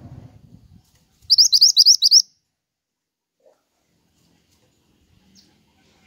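Caged pied bushchat (mantenan) singing a rapid phrase of about six high sweeping notes, under a second long, starting a little over a second in. A low rustle fills the first second, and one faint high note comes near the end.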